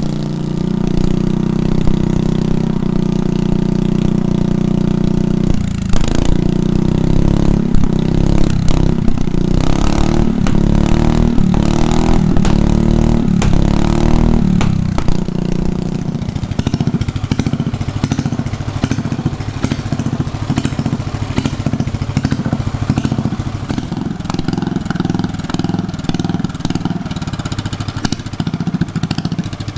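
11 hp Briggs & Stratton single-cylinder mower engine running through a custom open stack pipe. It holds steady at first, is revved up and down repeatedly from about six seconds in, then drops to a lower, choppy running speed for the rest.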